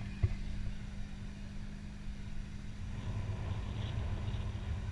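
Wind buffeting a camera microphone on a parasail high above the sea: an uneven low noise, with a steady low hum underneath.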